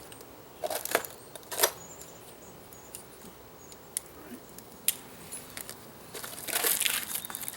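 A cardboard shipping box being opened and handled: scattered clicks and taps, then a stretch of rustling and crinkling of packing material near the end.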